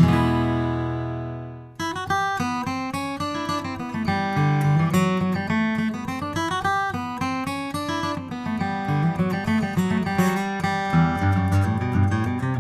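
A Taylor 914ce acoustic-electric guitar being played. A chord rings and fades for nearly two seconds and then cuts off. After that comes a melody of separately plucked notes over a walking bass line.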